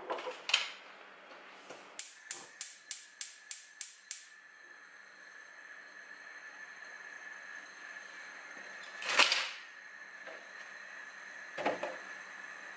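Gas hob burner being lit: the spark igniter clicks rapidly, about four clicks a second for two seconds, until the burner catches, then the lit burner gives a steady faint hiss with a thin whine. A loud knock about nine seconds in and another near the end, as of things set down on the counter.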